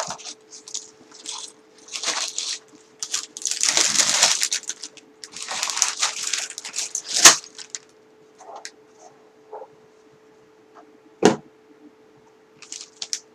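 Cardboard LEGO set box being opened and its contents pulled out: several stretches of rustling and scraping cardboard, then a sharp click about seven seconds in and another near the end.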